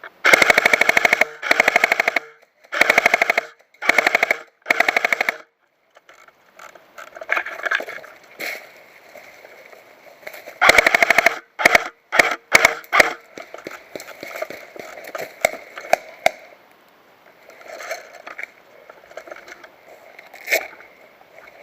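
Dboys S-System airsoft gun firing rapid full-auto bursts: five bursts in the first five seconds, another burst about eleven seconds in, then a few single shots.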